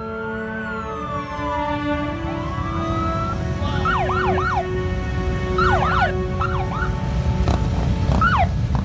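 Police motorcycle sirens, first a slow rising and falling wail, then rapid yelps from about three and a half seconds in, over the low rumble of many motorcycle engines that grows louder as the escort passes.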